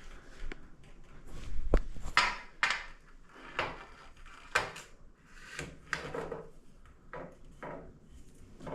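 Parts of an aluminium shower door frame being handled and fitted: a run of short rubbing and knocking noises at uneven intervals, with one sharp click a little under two seconds in.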